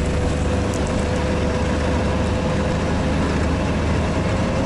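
Diesel engine of a Sherp all-terrain vehicle running steadily under way across snow, heard from inside the cab: a constant low drone with a steady mid-pitched whine over it.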